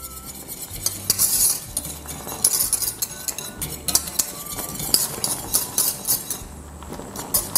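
Wire whisk beating béchamel sauce in a stainless steel saucepan, the wires scraping and clinking over and over against the pan as the sauce comes back to the boil and thickens.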